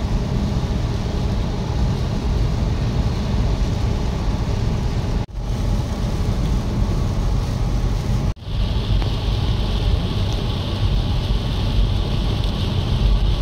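Steady road noise inside a car driving in heavy rain: a low rumble of tyres on the wet road with rain and spray hiss. The sound drops out for a split second twice, about five and eight seconds in, and after the second break the hiss is stronger.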